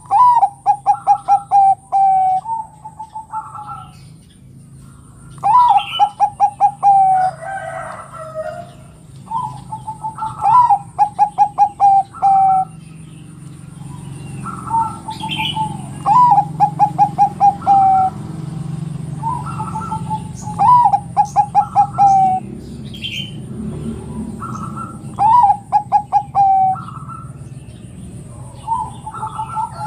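Bangkok-type zebra dove (perkutut) singing its bekur: each phrase is a rising note followed by a quick run of short, even coos, repeated every few seconds. Fainter chirps of small birds sound between phrases.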